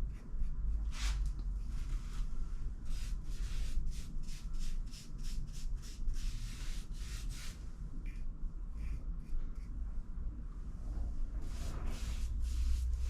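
Paintbrush strokes on trim: a series of short, irregular swishes as paint is brushed on, over a low steady rumble.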